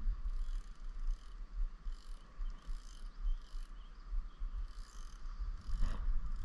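Baitcasting fishing reel being cranked on a slow retrieve, a faint, rasping mechanical clicking that repeats about twice a second, with one knock near the end.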